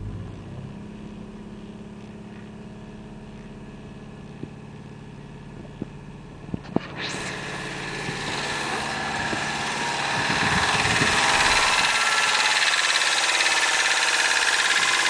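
Subaru engine running at idle with a few sharp clicks; about seven seconds in, a loud hissing rush builds up and takes over for the rest.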